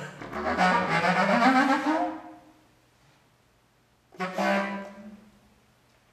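Contrabass clarinet playing a loud, rough phrase whose pitch rises and then dies away about two seconds in. After a short silence, a single loud note starts suddenly about four seconds in and fades within a second or so.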